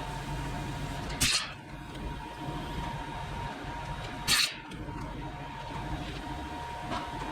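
A workshop machine running with a steady two-tone hum over low rumble. Two short, loud bursts of noise come about three seconds apart.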